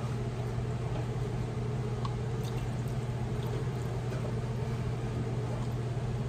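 A steady low hum of background noise, with a few faint ticks and the liquid sound of sweet and sour sauce being poured into glass canning jars.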